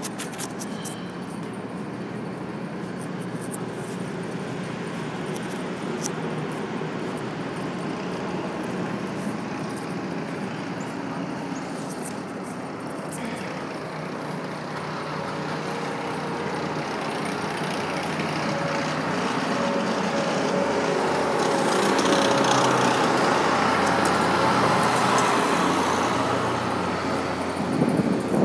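Street traffic noise: motor vehicles running along the road, with one drawing nearer and growing louder over the second half.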